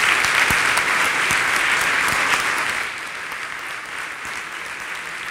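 Audience applauding, loud at first and easing to a lower level about three seconds in.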